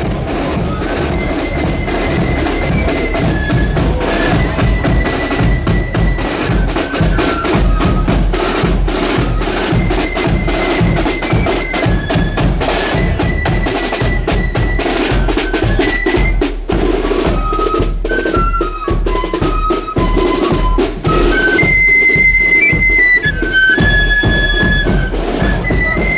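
Marching flute band playing a tune. Flutes carry the melody over rattling snare drums and a bass drum beating time, and the flutes climb higher and louder about three-quarters of the way through.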